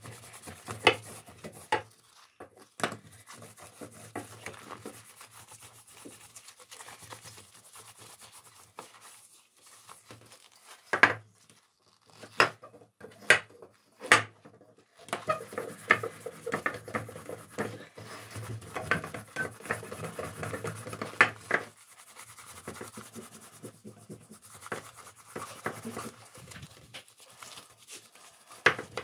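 Gloved hands rubbing metal polishing gel over an engraved metal dish: a scratchy rubbing with scattered knocks and clicks as the dish is handled, thickening into a longer stretch of steady rubbing about halfway through.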